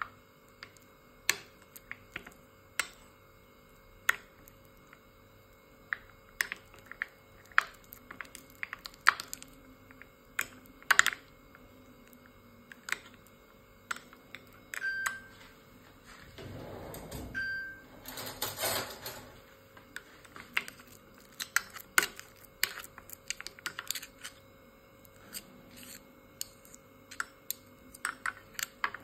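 Metal spoon clicking and scraping against a cut-glass bowl as butter and grated garlic are mashed together: irregular sharp clicks, several a second at times.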